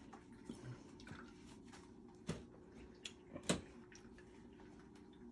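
Quiet small handling noises: a few faint soft clicks, then two sharper short knocks, about two seconds and three and a half seconds in.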